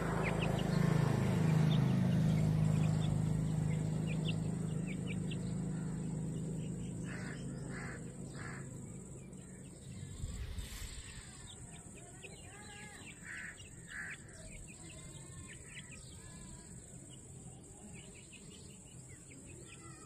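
Birds calling outdoors: a few short, harsh caw-like calls about a third of the way in and again later, with faint thin chirps between them. A low engine-like drone is loudest at the start and fades away over the first half. A steady high hiss runs underneath.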